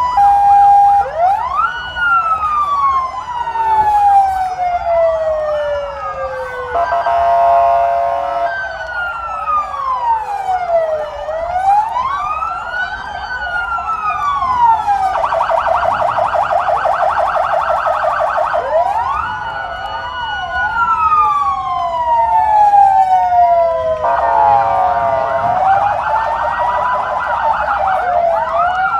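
Several electronic sirens sounding at once, cycling between slow rising-and-falling wails and a fast yelping warble, with the wails of two sirens crossing each other at times.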